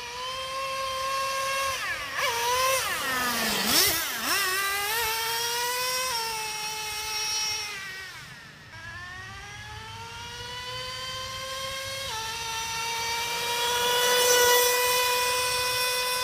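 Traxxas Revo 3.3 nitro RC truck's small two-stroke glow engine running at high revs as a high-pitched whine, its pitch rising and falling as the throttle is worked. About four seconds in the revs drop sharply and climb again. The engine grows loudest near the end.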